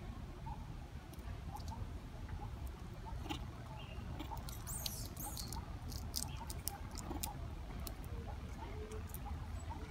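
Long-tailed macaques grooming and handling twigs at close range: scattered soft clicks and rustles, thickest in the middle, with many faint short chirps, over a steady low rumble.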